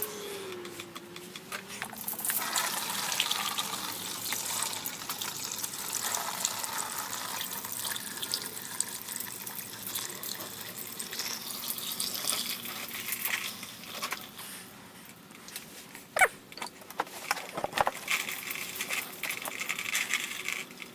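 Screen wash fluid splashing steadily out of the washer tank through the opening left by the removed pump and clogged filter, draining into a container below. A few sharp knocks come about three-quarters of the way through.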